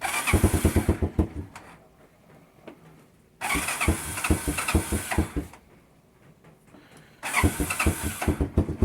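A 1986 Honda 200SX four-wheeler's single-cylinder engine being started cold: three times it is cranked, fires for a second or two and dies. It is a cold engine that the owner thinks needs some choke.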